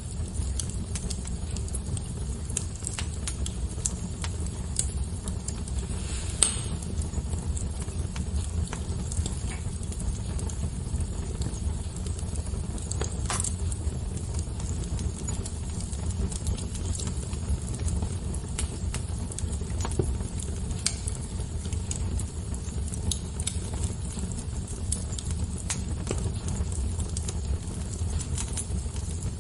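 Fire crackling: scattered small pops and snaps over a steady low rumble, with a couple of louder pops about six and thirteen seconds in.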